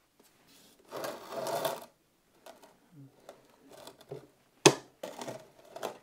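Hands handling a 3D-printed plastic RC skid steer model: about a second of rubbing and scraping a second in, then a single sharp plastic click near the end as the rear door is shut, followed by a little more fumbling.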